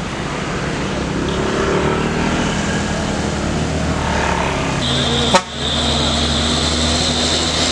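Heavy diesel engines running steadily, first the Kobelco SK200 excavator's engine idling. After an abrupt break about five seconds in, a dump truck's engine drones on, with a steady high-pitched tone over it.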